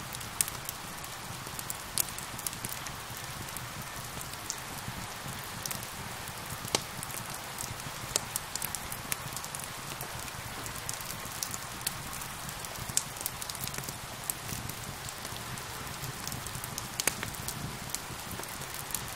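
Steady rain with a wood fire crackling: a constant hiss of rain under irregular sharp pops and snaps from the burning wood.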